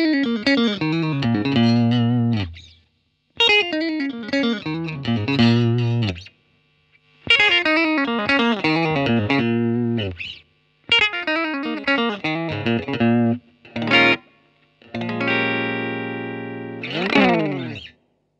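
Electric guitar, a Hahn 228 through an effects pedalboard into a Fender Blues Junior amp, playing short phrases of falling runs with brief pauses between them. Near the end a chord is held and then a fast falling run is played.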